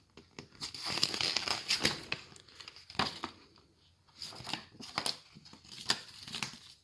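Folded paper instruction leaflet rustling and crinkling as it is handled and unfolded, in irregular bursts with short pauses.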